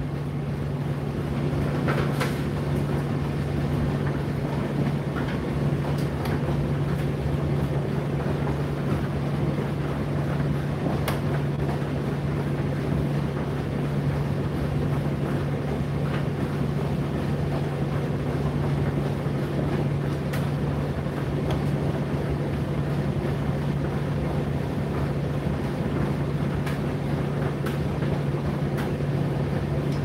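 Indesit IDC8T3 8 kg condenser tumble dryer running: a steady low motor hum with an even whirring rush over it and a few faint clicks.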